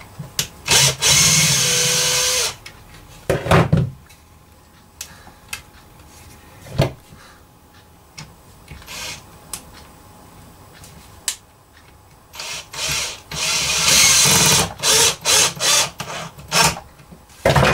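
Electric drill driving screws into wood in short runs: one of about two seconds near the start, and a second stretch about two-thirds through that breaks into several quick stop-start pulses, with clicks and knocks of handling in between.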